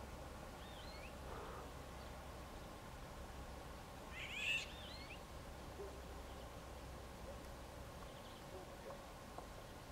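Eurasian golden oriole calling: one short, loud call with quickly bending pitch about four and a half seconds in, after a fainter call about a second in.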